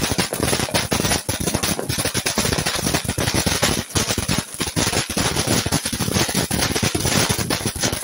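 Fireworks, with a spark fountain spraying, crackling in a rapid, unbroken string of sharp pops over a steady hiss.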